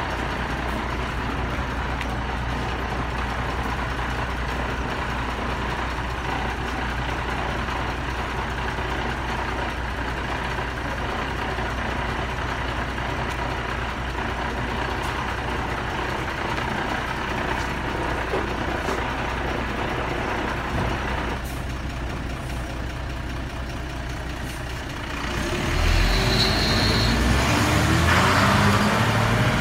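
Minibus engine idling steadily, then revving up near the end as the bus pulls away, with a brief high tone as it starts off.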